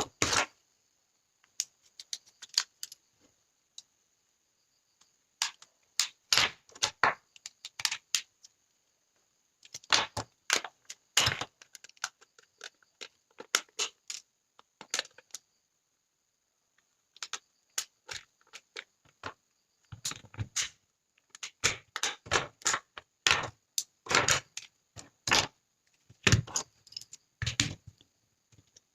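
Irregular sharp clicks, snaps and taps of hard plastic and small tools as a Huawei 4G modem's casing and parts are pried apart, coming in quick clusters with a few silent pauses.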